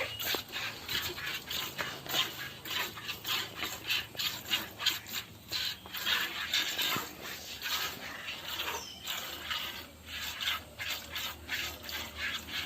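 A cow being milked by hand: jets of milk squirt into a pail in a steady rhythm of about three squirts a second.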